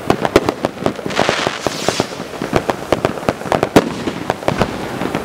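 Handheld Morning Glory sparkler fireworks burning: many irregular sharp pops and crackles, with a burst of fizzing hiss about a second in.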